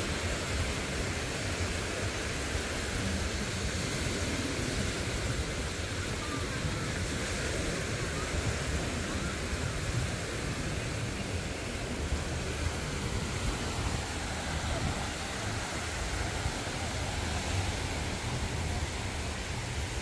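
Steady rushing noise of wind on the microphone mixed with small waves breaking at the shoreline of a beach.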